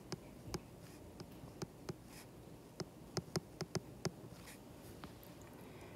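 Stylus tip tapping and clicking on a tablet's glass screen during handwriting. The sharp taps come in short runs, busiest about three to four seconds in, then die away.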